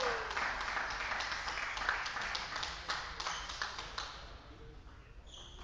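Scattered clapping from a few spectators after a table tennis point, many quick claps that die away after about four seconds.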